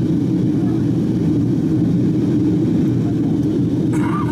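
Steady cabin noise inside a Boeing 737-800 in flight on approach: an even, low roar of the engines and the airflow, heard from a window seat over the wing. A brief, faint, higher sound comes near the end.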